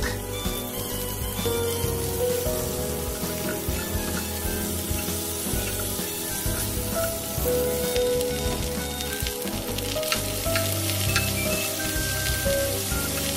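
Snow peas, onion and carrot sizzling as they stir-fry in a nonstick wok, with a wooden spatula now and then knocking and scraping against the pan. Background music plays underneath.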